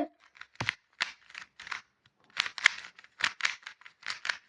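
A quick run of short, dry clicks and scrapes, a few a second, with a brief pause about two seconds in.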